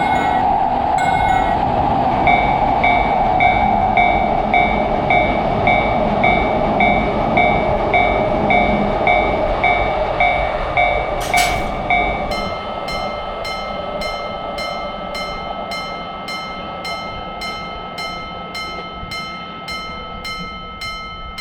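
A train running through a Japanese level crossing while the crossing's warning bell clangs over and over. About halfway through, the sound cuts abruptly to another crossing bell with a different, quicker chime as the train noise dies away.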